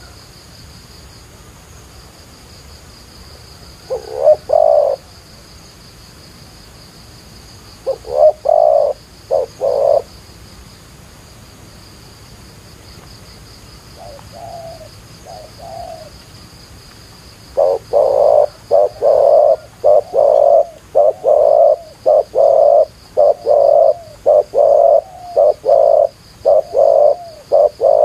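Spotted doves cooing: a few short phrases, then from about two-thirds of the way through a long run of repeated coos. A faint steady high whine runs underneath.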